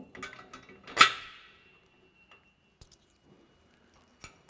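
Metal hardware and a hose clamp clinking against a steel frame rail, with one sharp ringing clang about a second in, then a few faint clicks.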